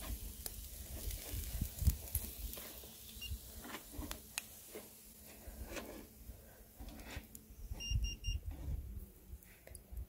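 Pork shashlik on metal skewers sizzling over hot charcoal in a mangal, with scattered small crackles and pops of fat on the coals. Three quick high beeps sound about eight seconds in.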